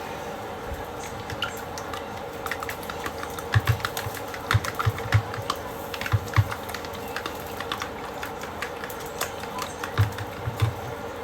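Kitchen utensils clicking and tapping irregularly against dishes, with a few dull knocks on the counter, over a steady appliance hum.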